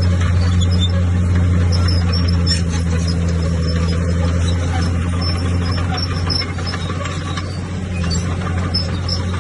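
Heavy diesel earthmoving machine running steadily with a deep, constant drone, and faint scattered metallic clicks over it.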